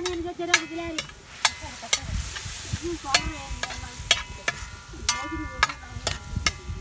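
Metal spatula stirring snails in their shells in a stainless-steel wok: repeated sharp clanks and scrapes against the pan, many of them ringing, over the sizzle of frying.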